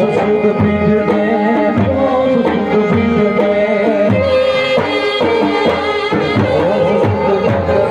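Live folk dance music played loud over a PA: a driving tabla-style drum rhythm under a wavering melodic line.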